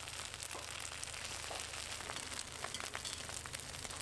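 Ham slices sizzling in oil on a flat steel griddle: a steady hiss with many small crackles and pops.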